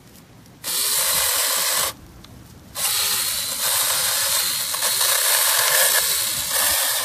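Battery-powered SeeSii 6-inch mini chainsaw running and cutting into a branch: a short burst of about a second, a brief pause, then a longer steady run.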